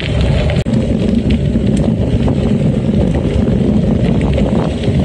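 Wind buffeting the microphone of a handlebar-mounted camera on a gravel bike riding a gravel track, a steady loud rumble with the tyres crunching over gravel and small rattles and knocks from the bike. The sound cuts out for an instant about half a second in.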